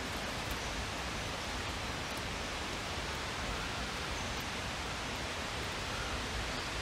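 Steady, even rushing noise with no separate events.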